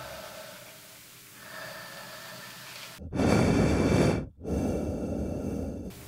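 Heavy breathing through a full-face snorkel mask: two long, loud breaths about three seconds in, one right after the other with a brief break between them.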